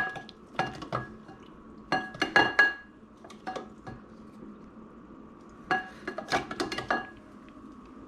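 Humidifier parts being handled, clattering and clinking against hard surfaces in several short bursts of knocks with a brief ringing note, the longest burst coming late.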